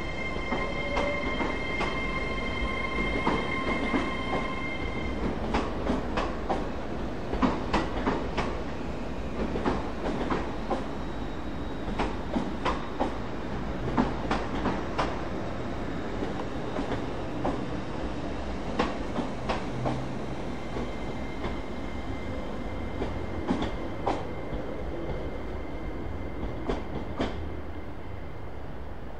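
A TransPennine Express Hitachi Class 802 train running slowly out over curved pointwork, its wheels clacking over the crossings in irregular clicks above a low rumble. A high, steady wheel squeal rings for the first few seconds and comes back in the latter part as the train takes the curves.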